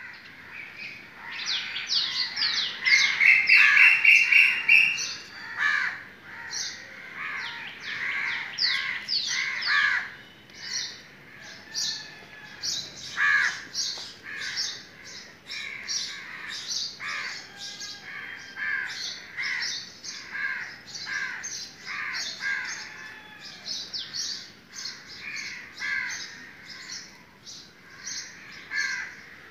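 A dense chorus of birds chirping and calling, with many quick repeated chirps and short trills. It is loudest in the first five seconds, then keeps on steadily.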